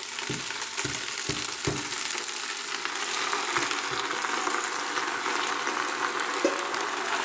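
Fresh leaf spinach sizzling as it is tipped into hot olive oil with softened onion and garlic in a pot. There are several soft thumps in the first couple of seconds as the leaves land.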